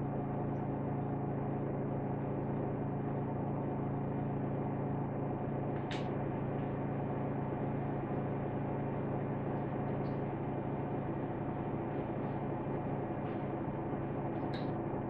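Steady low electrical hum with hiss, and one brief click about six seconds in.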